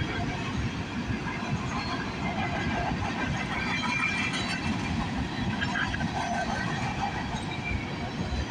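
Loaded potash freight cars rolling past on steel wheels: a steady rumble and clatter over the rail joints, with faint squealing tones.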